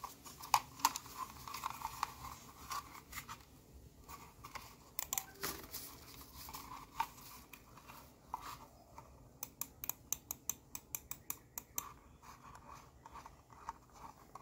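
Plastic packaging crinkling and rustling while a mouse cable is handled, then a Portronics POR-1800 wired mouse clicking in a quick run of about a dozen clicks a little past the middle.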